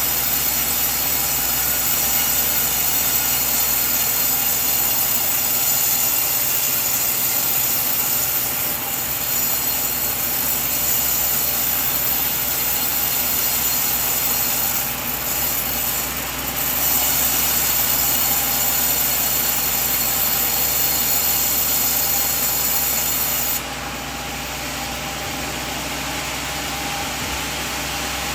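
Sawmill band saw running steadily, cutting a coconut log. The high hiss of the cut drops away suddenly near the end while the machine keeps running.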